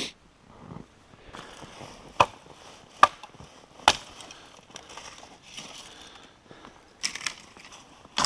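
Three sharp knocks a little under a second apart, over a faint rustling and crunching, with a short scraping burst near the end.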